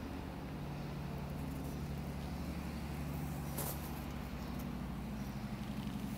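A steady low mechanical hum, with one sharp click about three and a half seconds in.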